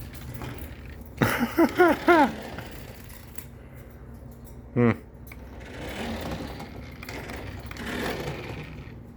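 Short pitched vocal calls: four quick rising-and-falling cries about a second in, then one more just before the halfway point, over a faint steady hum.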